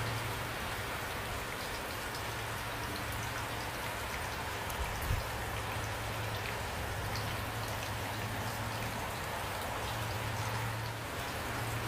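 Steady rain falling, with many separate drops ticking over an even hiss and a low steady hum underneath. A single soft thump comes about five seconds in.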